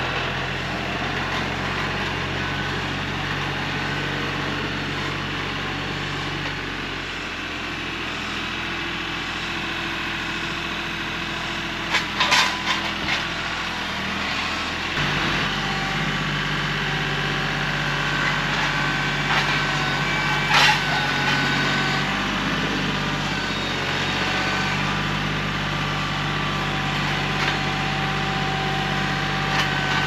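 Kioti CK3510SE compact tractor's diesel engine running steadily while its grapple handles logs. The engine speed drops about a quarter of the way in and picks up again about halfway. A few sharp knocks of logs against the grapple come just before the middle, again about two thirds of the way in, and at the end.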